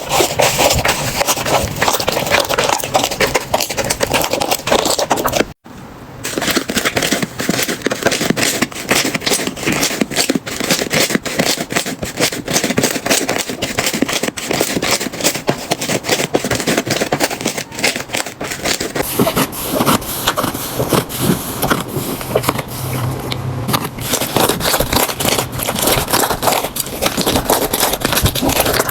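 Slime being squeezed and pressed by hand, giving dense, crackly clicks and pops of trapped air. The sound stops abruptly for a moment about five and a half seconds in, and its texture changes near twenty seconds in.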